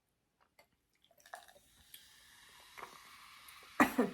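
Pepsi poured into a glass, a faint steady fizz with small ticks starting about a second in, and one brief, much louder sound near the end.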